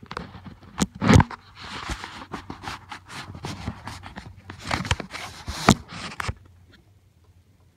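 Phone handling noise: the microphone rubbing and bumping against clothing and skin, giving a busy run of scrapes and knocks that stops about six seconds in.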